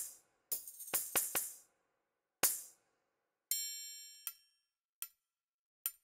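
Sampled tambourine from UVI Orchestral Suite's Petites Percussions, played from a keyboard: a quick cluster of jingling strikes, then one more. About three and a half seconds in, a sampled triangle takes over: one struck note rings out, then three short dinks.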